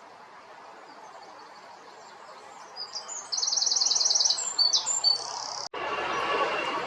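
A small bird singing a song of high notes. About three seconds in comes a fast high trill of about ten notes a second, lasting about a second, followed by a few more notes. Near the end the song cuts off abruptly and gives way to a louder steady rushing noise.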